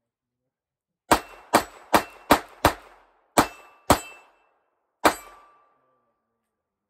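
Ruger LCR eight-shot .22 LR revolver firing eight sharp shots, emptying the cylinder: five quick shots about a third of a second apart, then three more with longer pauses. A faint ring lingers after the last few shots.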